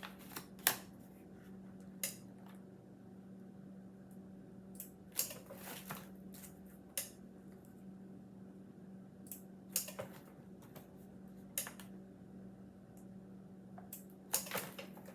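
Impulse heat sealer being worked on Mylar bags: irregular clicks and crinkling as the bags are handled and the sealer arm is pressed and released, over a steady low hum.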